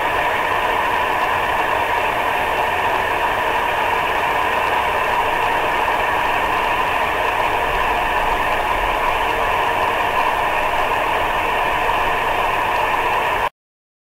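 A steady, dense rushing noise with no rhythm or pitch changes, which cuts off suddenly near the end.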